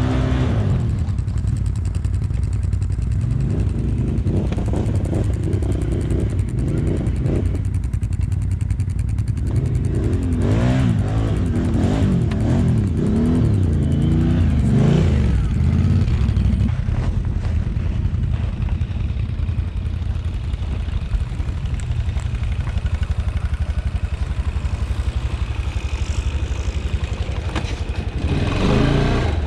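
ATV engine running, its pitch rising and falling several times as it is revved, most about a third to halfway through.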